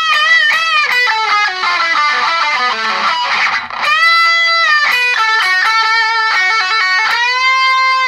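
Electric guitar lead phrase on an Ibanez strung with light-gauge D'Addario EXL120BT balanced-tension 9-40 nickel-wound strings: single notes with string bends on the high E string, the last note bent up and held with vibrato near the end.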